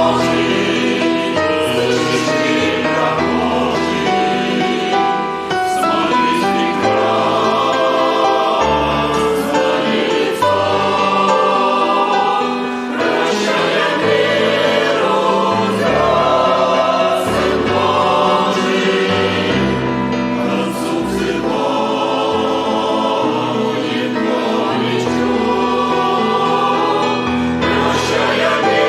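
A choir singing a Christian hymn, with sustained sung notes over an instrumental accompaniment and a steady bass line.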